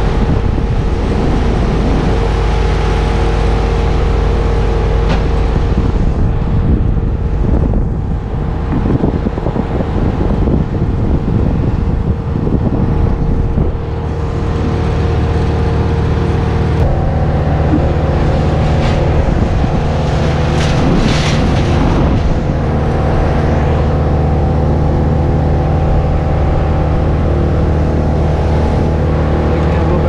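A large engine of the tree-removal equipment running steadily, its pitch shifting about halfway through.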